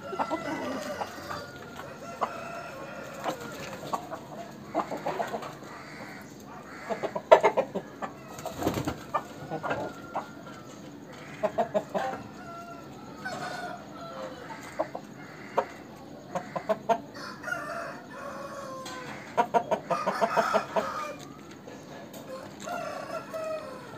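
Chickens clucking in repeated short runs of quick calls, with a rooster crowing.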